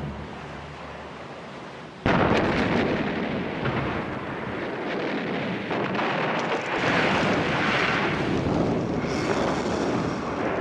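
Battle explosions: a sudden loud blast about two seconds in starts a continuous rumbling din of shell bursts and fire.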